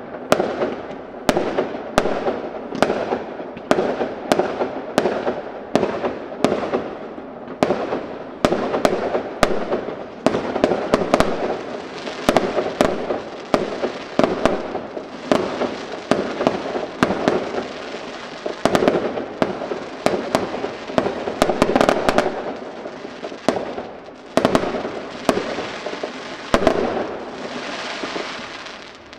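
Aerial fireworks display: shells bursting in quick succession, one or two sharp bangs a second, with crackling in between. Near the end the bangs thin out and a hissing crackle remains.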